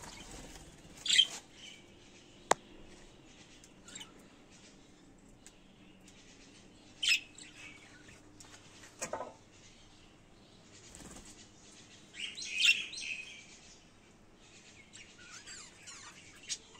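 Budgerigars chirping in short, scattered calls, with a busier flurry of chirps about twelve seconds in. A single sharp click about two and a half seconds in.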